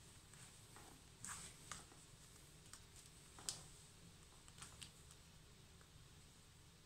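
Faint clicks and scuffs of a leather high-heeled ankle boot's side zipper being tugged and pinched closed over a tight fit, the sharpest click about halfway through.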